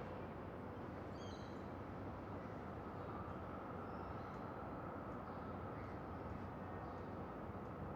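Distant city drone: a steady, deep rumble of far-off urban noise. A brief high chirp comes about a second in, with a few fainter high calls later.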